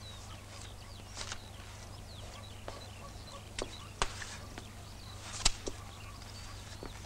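A few sharp clicks and knocks, the loudest about five and a half seconds in, over faint chirping of small birds and a low steady hum.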